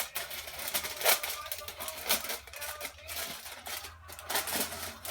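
Aluminum foil being torn and crumpled by hand: an uneven run of crackles and sharp clicks.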